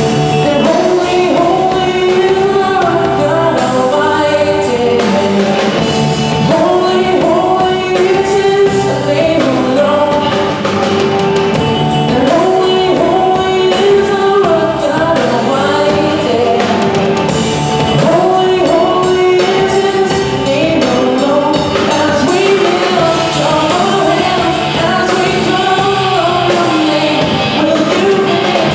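Live worship rock song: a young male lead singer sings over a teenage band's electric guitars, loud and steady throughout.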